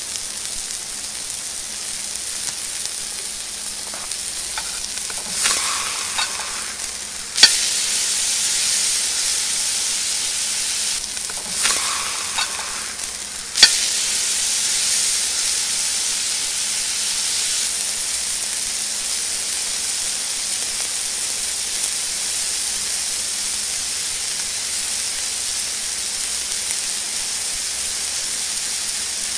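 Beef steak sizzling steadily in a cast iron pan over wood embers. Twice, about seven seconds in and again about thirteen seconds in, there is a short busy stretch ending in a sharp click, and each time the sizzling is louder afterwards.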